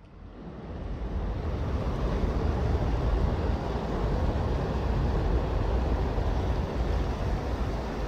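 Creek water rushing over rocks in a shallow rapid, a steady rushing noise, with wind buffeting the microphone. It fades in over the first second.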